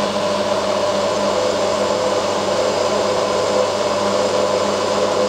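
Drill press running steadily as a 5 mm twist drill bores dry into grey cast iron, with a constant motor hum.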